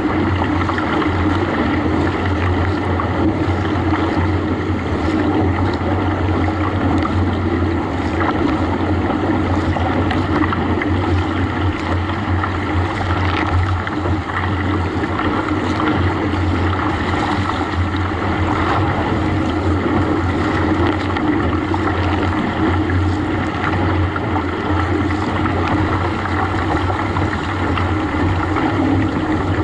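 Wake water rushing and splashing along the hull of a Nordic Kayaks Nitro 600 racing kayak as it surfs a motorboat's wake, with wind on the microphone and a steady low drone underneath.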